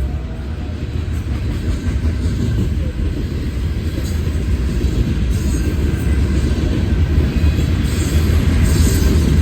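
Cars of a long Norfolk Southern freight train rolling past, a steady rumble of wheels on rail that grows slightly louder, with a few faint, brief high-pitched sounds over it.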